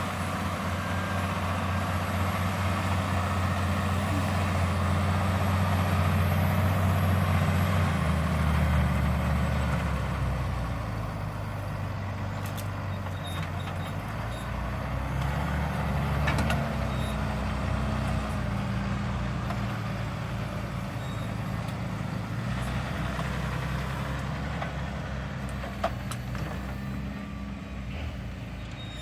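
Valtra Q Series tractor engine running steadily under load while pulling a five-furrow plough. It grows louder over the first several seconds, eases off, and swells again about halfway through, with a short click near the end.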